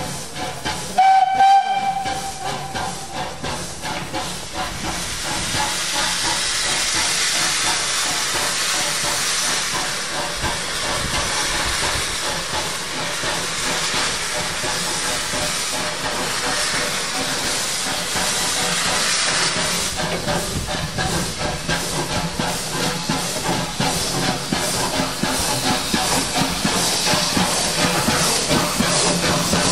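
Danish class F 0-6-0T steam tank locomotive No. 656 hissing steam steadily, with a short whistle blast about a second in.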